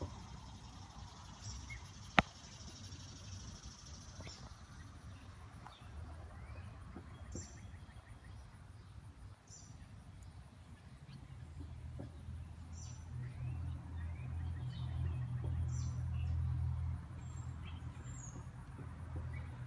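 Outdoor ambience: scattered short bird chirps over a low rumble that swells from about eleven seconds in and drops away near seventeen seconds. There is one sharp click about two seconds in.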